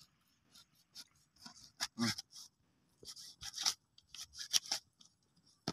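Kitchen knife slicing through catfish meat on a banana leaf over a wooden board: a series of short, irregular cutting and scraping sounds with light taps of the blade, in small clusters.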